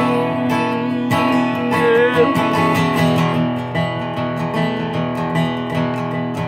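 Acoustic guitar strummed in a steady rhythm, an instrumental passage between the sung lines of a song. A brief wavering note sounds about two seconds in.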